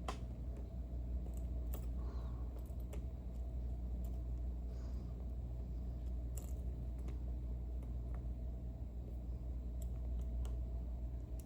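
Scattered small, sharp clicks of a tool working inside a partly disassembled Ezcurra C23 slider lock, trying to free a stuck part, over a steady low hum.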